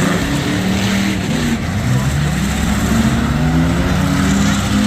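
Several demolition derby cars' engines running and revving at once, their pitches rising and falling against each other.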